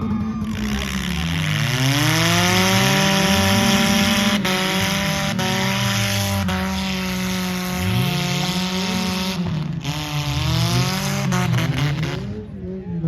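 Several derby car engines revving at once, their pitches rising and falling over one another, over a steady hiss, with a few sharp knocks in the middle.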